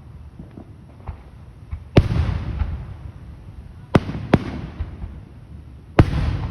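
Aerial fireworks bursting overhead: four loud booms, the first about two seconds in, then two close together near the middle and one more near the end. Each boom is followed by a long rolling echo, with a few faint crackling pops in between.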